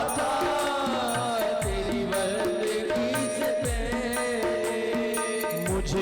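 Instrumental devotional bhajan music: held melody notes with a gliding line over them, a hand drum whose deep strokes drop in pitch about once every two seconds, and quick bright percussion taps.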